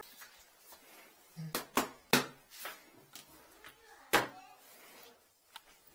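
A handful of sharp knocks and clicks as equipment is handled next to a toilet and the plastic toilet seat lid is lifted. The loudest comes about two seconds in, with another about four seconds in.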